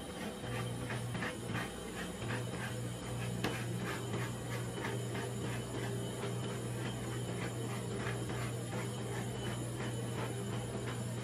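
Metal spatulas scraping and tapping on a rolled-ice-cream cold plate in quick repeated strokes, about three a second, as the ice cream mixture is chopped and spread thin, over a steady low hum.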